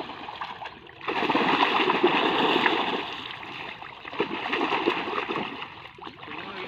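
Splashing and sloshing of shallow muddy water as men grope for fish by hand, loudest from about a second in until about three seconds.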